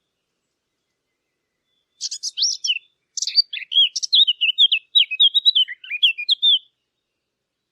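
A Sylvia warbler singing one fast warbling phrase of quick, varied notes, starting about two seconds in and lasting about four and a half seconds, with a brief break near its start.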